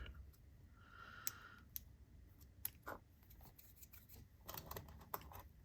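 Faint, scattered clicks and taps of small parts being handled and fitted together while a magnetic click fidget is reassembled.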